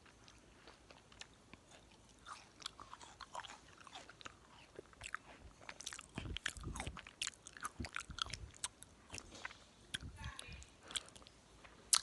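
A person biting into and chewing watermelon close to the microphone: a quick run of small clicks that starts about two seconds in and is busiest in the middle, with a low thump or two about halfway.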